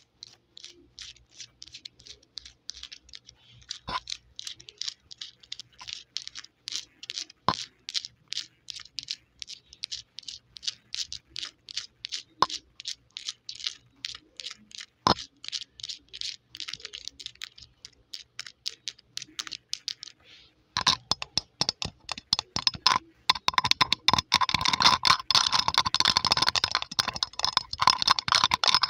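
Long polished fingernails tapping on a microphone's metal mesh grille: a steady run of light clicks, about three a second, with a few louder knocks. After a short pause about twenty seconds in, the tapping turns to fast, louder scratching and tapping across the grille.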